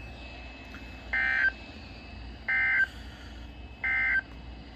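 Three short bursts of Emergency Alert System (SAME) data tones from a NOAA Weather Radio receiver, about a second and a half apart. They are the end-of-message code that closes a severe thunderstorm warning broadcast.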